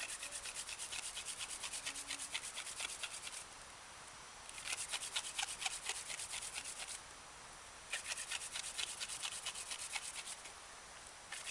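Wooden hand-drill spindle twirled back and forth between the palms, scrubbing in a fireboard notch with a rapid rhythmic rasp, about nine strokes a second, in three bouts with short pauses between. Light, easy pressure, building up wood dust in the notch before going for a coal.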